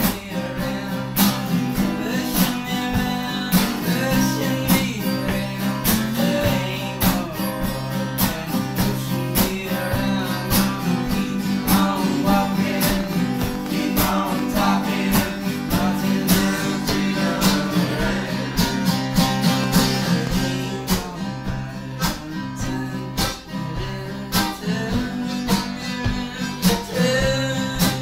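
Acoustic string-band jam: an archtop guitar and a mandolin playing a tune together, strummed chords under plucked melody.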